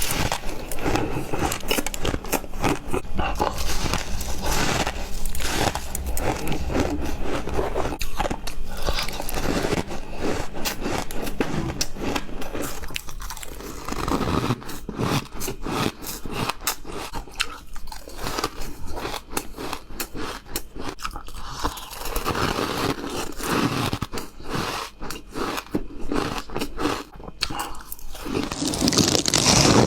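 Close-miked crunching of powdery chunk ice being bitten and chewed: a dense, irregular run of crisp crunches, one after another.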